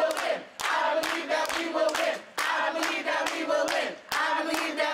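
A small crowd chanting a rallying slogan in unison about winning, repeated about three times, with hands clapping along.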